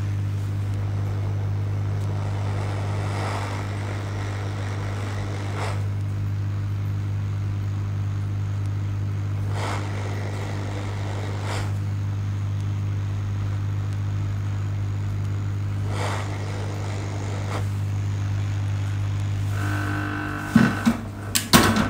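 Hot air rework gun running with a steady hum and blowing air, desoldering a failed resistor from a TV power board. It shuts off about 20 seconds in, followed by a few sharp handling clicks.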